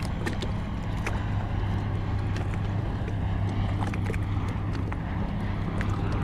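Lockheed Martin C-130J Super Hercules turboprop passing low overhead: a steady low propeller drone that holds without break. Light water lapping ticks sound on top.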